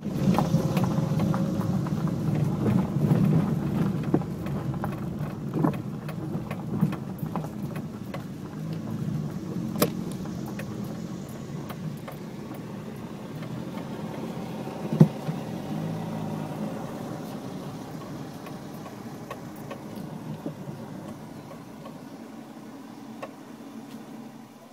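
A vehicle's engine running with a low rumble that slowly fades away, with scattered clicks and a couple of sharp knocks.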